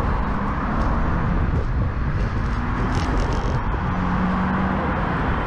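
Steady wind rush and low buffeting on a handlebar-mounted camera's microphone while cycling, with road traffic on the dual carriageway alongside. A faint engine note is held for about a second, around four seconds in.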